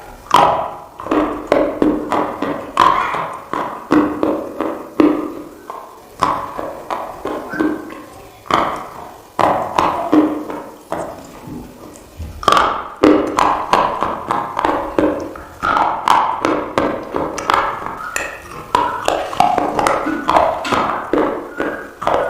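Close, crunchy chewing of khawa, an edible clay soaked in water. It comes as run after run of sharp crackling crunches, one every second or so.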